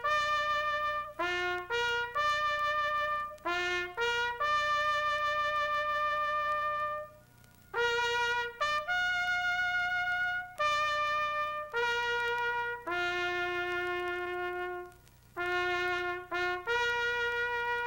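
Solo trumpet playing a slow melody, one held note at a time, in phrases with short breaks and no accompaniment.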